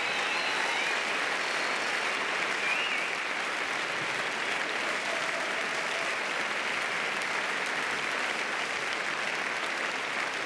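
Large theatre audience applauding steadily at the end of a song.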